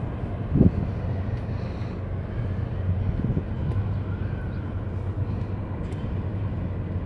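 Steady low drone of a boat's engine under way, with water and wind noise and a brief buffet of wind on the microphone about half a second in.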